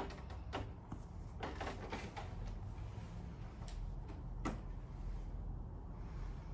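A few scattered knocks and shuffles as a child gets up from a piano bench and stands, with the sharpest knock about four and a half seconds in, over a low room hum.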